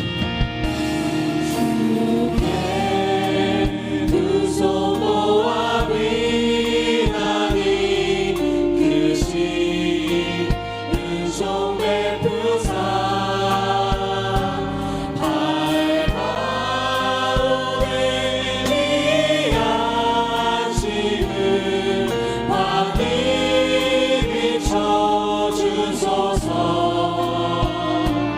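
Congregation singing a Korean worship song with a live band accompaniment and a steady drum beat.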